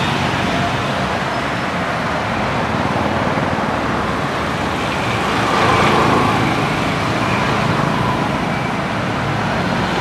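Street traffic noise from passing motorcycles and cars, a steady engine hum and tyre noise that swells briefly about six seconds in.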